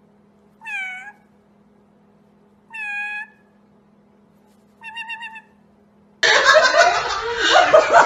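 A white-bellied caique gives three short, high calls about two seconds apart, the first falling in pitch. About six seconds in, a loud, noisy stretch of screeching cuts in.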